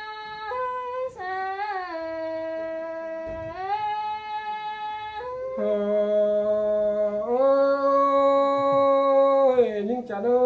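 Unaccompanied singing of a Thái folk song: one voice holds long drawn-out notes, sliding between them, and drops to a lower pitch about halfway through.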